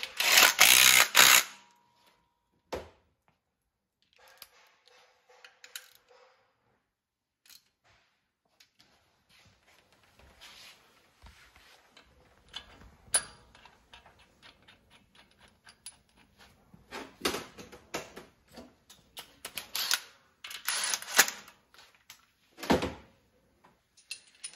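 Hand tools and metal engine parts being handled while the heavy-duty supercharger belt tensioner is fitted: scattered clicks, clinks and knocks, with a loud burst at the start and several more loud bursts in the last third.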